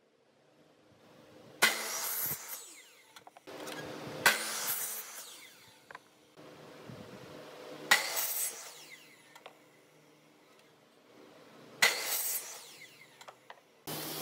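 Miter saw cross-cutting pine blocks four times: each cut starts with the saw's motor rising in level, the blade biting into the wood with a sharp hit, and the blade coasting down with a falling whine.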